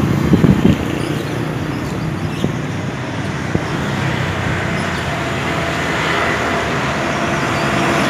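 Street traffic noise: a steady rumble of passing motor vehicles, loudest in the first second.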